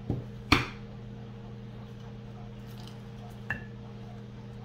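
A ceramic plate is set down on a table with a soft knock, then a sharper, louder knock about half a second in, followed by quiet handling of a deep-fried chicken quarter and a light tick later on. A steady low hum runs underneath.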